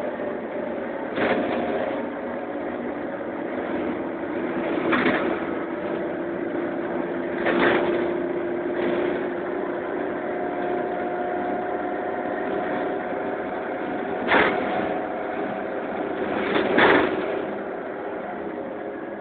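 Inside a Karosa Citybus 18M articulated bus under way: the engine and drivetrain run with a steady hum and a whining tone that grows stronger in the middle. Several sharp knocks from the body break through, the loudest near the end.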